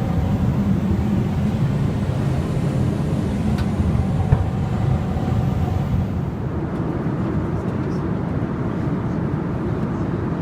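Steady low rumble of engine and airflow noise inside the cabin of an Airbus A320 in flight, with a faint click about four seconds in.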